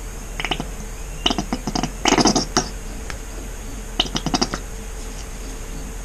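Plastic squeeze bottle of acrylic paint being squeezed upside down, paint and air sputtering from the nozzle in four bursts of rapid crackling, the loudest about two seconds in.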